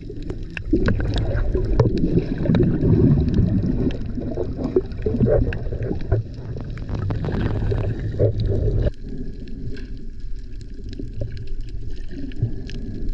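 Rumbling wind and water noise with many small knocks. About nine seconds in it changes abruptly to a quieter, steadier noise with a faint hum.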